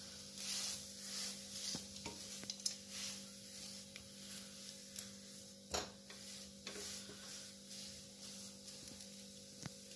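Silicone spatula stirring and scraping a sticky date-and-nut mixture in a nonstick pan in repeated soft swishes, over a faint sizzle of ghee on low heat. A sharp tap stands out about six seconds in.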